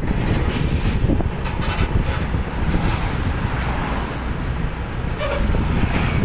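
Wind buffeting the microphone over a steady low rumble of engines and tyres on the road, recorded while driving behind a heavy truck.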